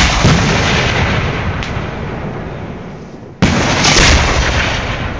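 Aerial firework shells bursting: a loud boom right at the start and another about three and a half seconds in, each fading away over a couple of seconds.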